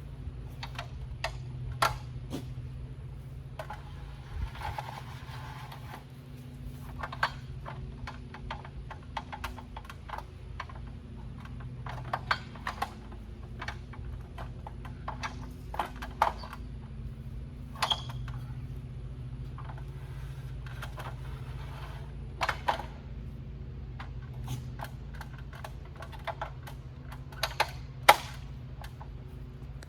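Irregular clicks, knocks and rattles, some sharp and the loudest near the end, over a steady low hum.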